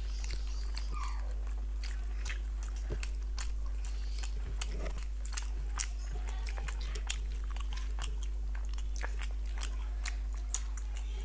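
Close-up eating sounds: two people chewing and smacking their lips as they eat curry and luchi with their fingers, with many small wet clicks, over a steady low hum.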